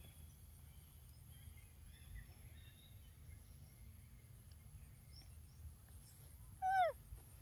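Outdoor ambience with a faint, steady high insect hum and a few faint bird chirps, then near the end one short, loud animal call that falls in pitch.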